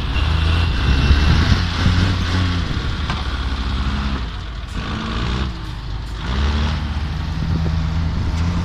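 Trial truck's diesel engine working at low revs as it crawls over rough ground. It eases off for a moment around the middle, then picks up again with a slight rise in revs.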